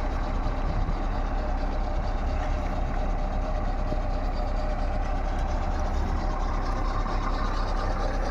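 Excavator engine running steadily at an even pitch, a constant low hum with no change in speed.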